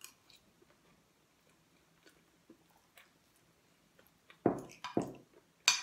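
Quiet chewing of a mouthful of macaroni salad, then, near the end, a few short scrapes and clicks of a metal spoon against the plate as more is scooped up.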